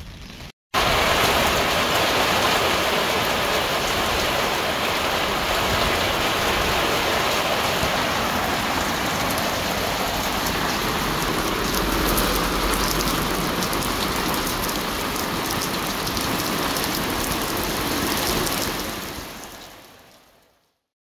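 Heavy rain pouring down, a dense steady hiss of drops that fades out near the end.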